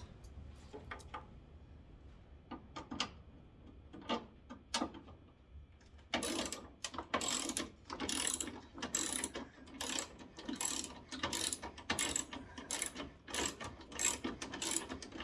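Socket ratchet wrench clicking as bolts are backed out: a few scattered clicks at first, then quick, steady ratcheting strokes from about six seconds in.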